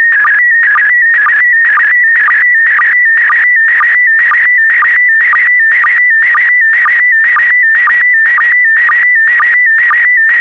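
PD120 slow-scan television (SSTV) signal: a high warbling tone that shifts pitch constantly as it carries a photograph line by line, broken by a short lower sync blip about twice a second.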